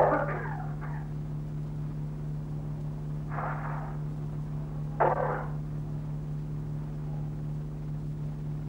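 A steady electrical hum runs throughout, with short loud bursts of unidentified sound over it: one at the start, one about three seconds in and one about five seconds in.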